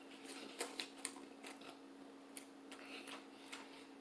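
Faint, wet mouth sounds of someone chewing a mouthful of chili cheese fries: soft smacks and clicks, several a second.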